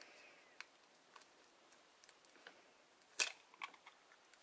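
A hen's eggshell being cracked by hand: a few faint taps, then one sharp crack about three seconds in, followed by smaller clicks as the shell is broken open.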